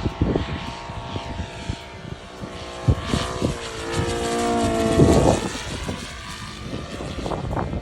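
60cc engine of a large radio-controlled Zero fighter flying past, its propeller drone bending in pitch and loudest about five seconds in. Strong wind thumps on the microphone throughout.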